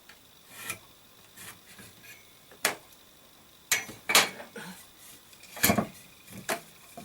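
Wooden pieces knocking and clacking as they are handled and set down, about six sharp knocks at irregular intervals with lighter clicks between.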